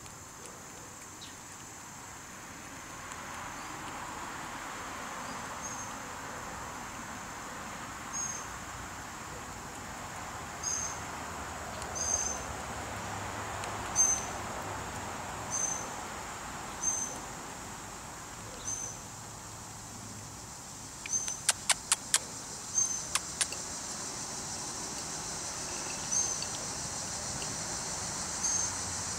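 Outdoor background with a passing car swelling and fading over several seconds, short high chirps repeating every second or two, and a quick run of sharp clicks about 21 seconds in.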